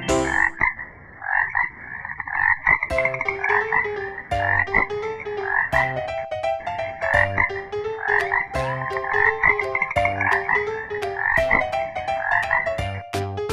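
Frog croaking over and over, rapid pulsed calls in repeated runs.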